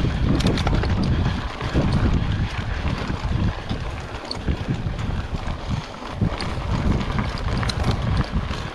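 Wind buffeting the microphone of a camera on a moving mountain bike, over the uneven rumble of knobby tyres rolling on a gravel trail, with scattered small clicks and rattles.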